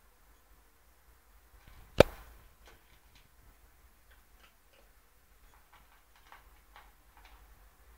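A cat crunching dry kibble from a bowl: a run of faint short ticks, about two a second. One sharp click about two seconds in is the loudest sound.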